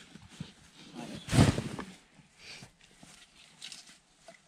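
Footsteps and rustling in dry leaf litter as gear is carried in, with one heavy thump about a second and a half in.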